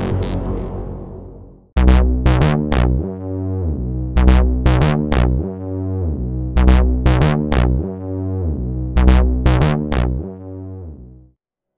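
Jasper Wasp clone, a DIY copy of the EDP Wasp analog monosynth, playing a low repeating riff: quick runs of about four short notes with clicky attacks, recurring every two and a half seconds or so. An earlier note dies away in the first second and a half, and the riff fades out near the end.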